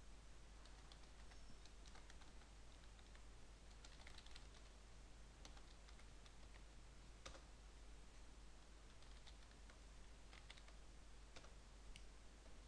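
Faint computer keyboard typing: scattered single key clicks as a web address is typed, over a steady low hum and hiss.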